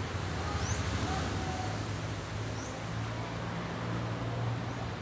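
Street ambience dominated by a motor vehicle's engine running nearby, a steady low hum that shifts in pitch about two seconds in, with a few faint high chirps over it.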